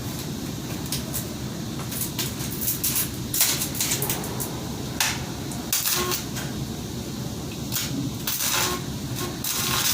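Arc welding: short bursts of crackling, hissing arc, struck several times at irregular intervals, over a steady low hum.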